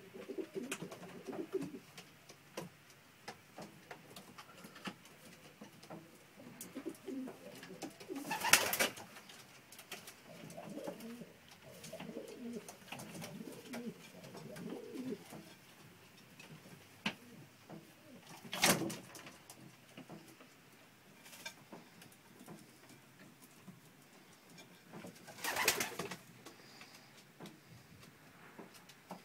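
Mated domestic pigeons cooing in their nest boxes in low, warbling calls. Three short loud rustling bursts come about 9, 19 and 26 seconds in.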